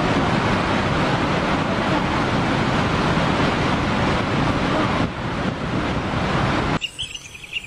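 Massive flow of water rushing over an open dam spillway, a steady loud roar of white water. It cuts off suddenly about seven seconds in, leaving faint bird chirps.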